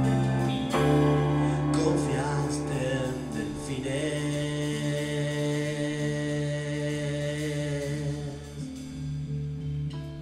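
A rock band playing live, holding long sustained notes, with the loudness dipping briefly near the end.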